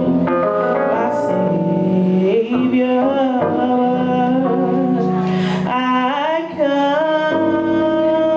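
A singer holding a wavering melody line over sustained accompanying chords that change every second or two.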